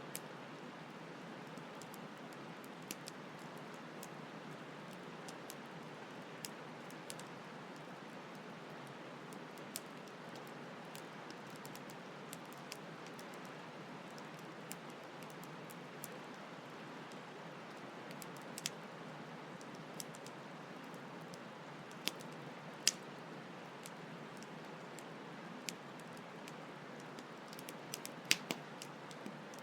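Campfire crackling, with sharp pops at irregular intervals, a few louder ones about three-quarters of the way through and near the end, over a steady hiss of flowing stream water.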